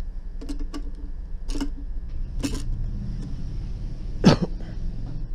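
Sharp plastic clicks and knocks as the soldering-iron holder is fitted onto the side of a desoldering station, over a low steady hum, with one short cough about four seconds in.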